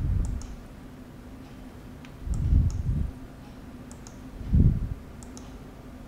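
Computer mouse clicking: a few quick clicks, mostly in pairs. Low muffled bumps on the microphone are louder, around the start, from about two and a half to three seconds in, and again at about four and a half seconds, over a faint steady hum.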